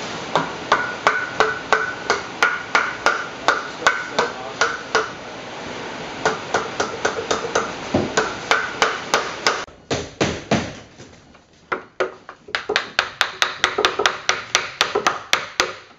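Hammer blows in quick runs of about three to four strikes a second, each with a short ringing note, broken by brief pauses. A steady hiss under the first runs stops about ten seconds in.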